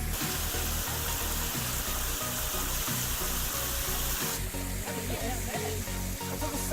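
Background music with a steady beat, over the rushing hiss of cascading water that drops away suddenly about four seconds in.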